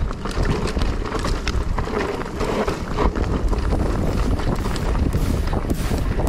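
Mountain bike rattling and clattering down a loose, rocky trail, with many sharp knocks from the tyres and frame over the rocks under a constant rumble. Wind buffets the microphone.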